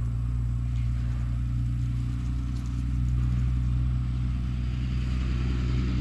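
An engine or motor running steadily with a low, even hum.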